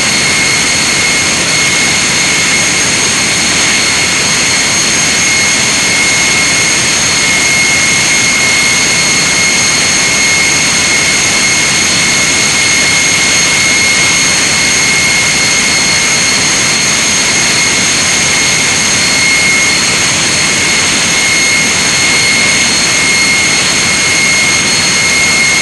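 Large power-plant engine running steadily on a test run, a loud unchanging engine-room noise with a high steady whine over it.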